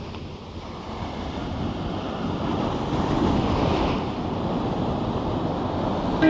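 Ocean surf breaking and washing up a sandy beach, a steady rushing that swells toward the middle, with wind buffeting the microphone.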